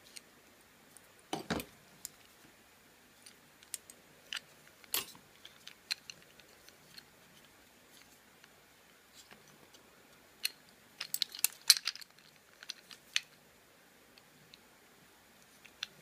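Small metal lock-picking tools clicking and tapping as they are picked up and worked against a hard plastic lockout padlock. The sharp clicks are scattered, with a louder knock about a second and a half in and a quick flurry of clicks past the middle.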